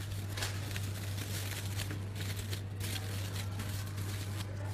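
Aluminium foil crinkling in irregular crackles as it is crumpled and rolled tightly around a stuffed roast, over a steady low hum.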